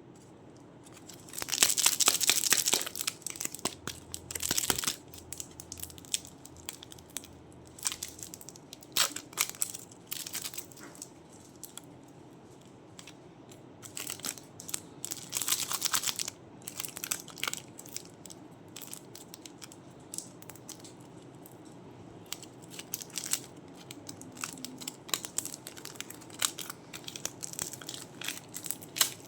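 Crunchy clay being squeezed and crushed by hand: irregular bursts of crackling and crunching, loudest about two seconds in and again around fifteen seconds, with scattered small clicks in between.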